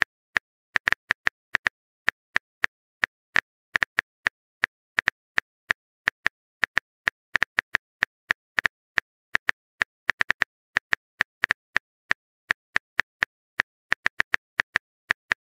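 Phone keyboard typing sound effect: quick, uneven clicks, about four a second, with a few short pauses, as a text message is typed out.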